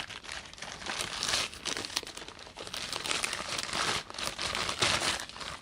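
Packaging being crumpled and crinkled as it is handled and pulled away, in irregular crackles with some tearing.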